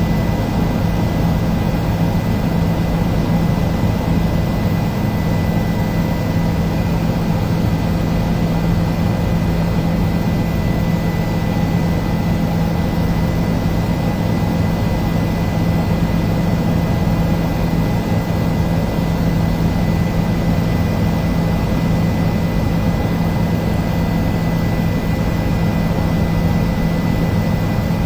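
Helicopter in flight: a steady engine and rotor drone with a thin, high, steady whine over it.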